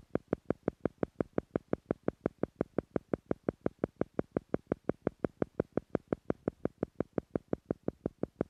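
Theta-frequency pulse sound for brainwave entrainment: an even train of short beats at about five a second.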